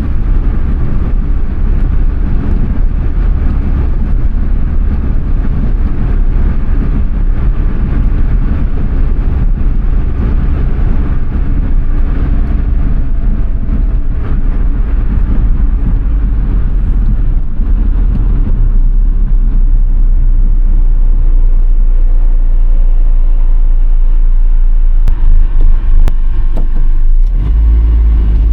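Suzuki Alto Works HA11S being driven, its small three-cylinder turbo engine running with steady road and drive noise. The low rumble is loud throughout.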